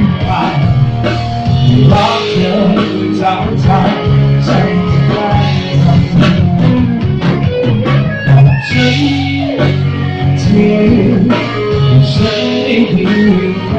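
Live band playing amplified music: electric bass guitar and drum kit in a steady groove, with guitar over them.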